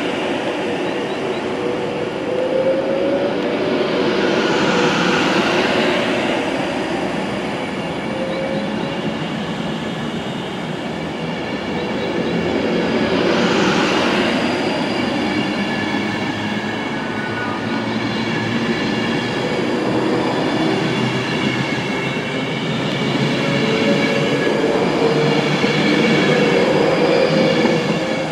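Avanti West Coast Class 390 Pendolino electric train pulling out along the platform, with a steady electric whine over rumbling wheels and a couple of swells as coaches pass. The whine rises in pitch near the end as the train gathers speed.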